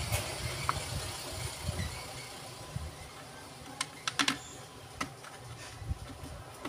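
A few small, sharp metallic clicks and taps as a long screwdriver and small parts knock against a demolition hammer's housing and screws, with a quick cluster of clicks about four seconds in and another a second later.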